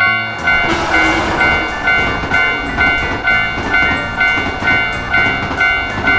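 Japanese railroad crossing warning bell ringing about twice a second, with the noisy rumble of a passing train coming in about half a second in.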